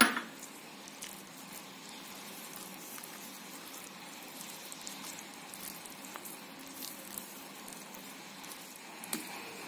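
Spatula stirring grated carrot into thick cake batter in a bowl: a faint, steady wet mixing sound with a few light clicks.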